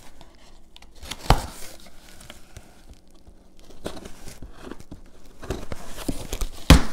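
A cardboard shipping box being handled and opened: rustling, scraping and tearing of the cardboard flaps and packing tape. There is a sharp knock about a second in and a louder one near the end.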